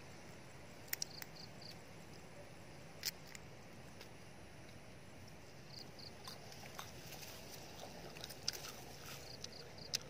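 Faint outdoor background in which a small animal gives a short, high three-note chirp, three times about four seconds apart, with scattered sharp clicks and taps in between.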